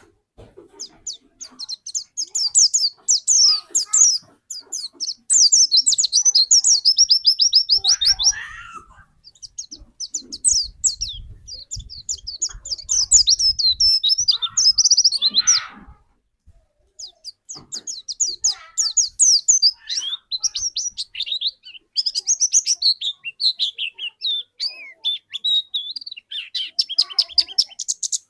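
White-eye (pleci) songbird singing: long, rapid trills of very short high notes in phrases several seconds long, with a brief pause about two-thirds of the way through.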